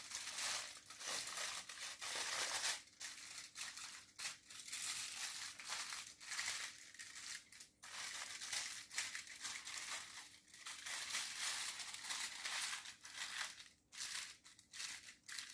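Aluminium foil being folded, crimped and pressed by hand into a packet, crinkling and crackling in repeated bursts with a few short pauses. A faint steady hum sits underneath.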